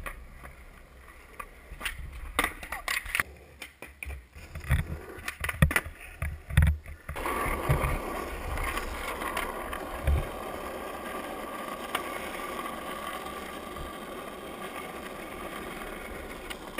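Scattered clacks and knocks of a skateboard on concrete, then, about seven seconds in, the steady noise of skateboard wheels rolling on asphalt, with one thud around ten seconds.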